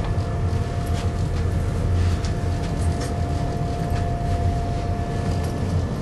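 Passenger train heard from inside the carriage as it rolls slowly into a station: a steady low rumble with a steady mid-pitched whine that fades near the end, and a few faint clicks.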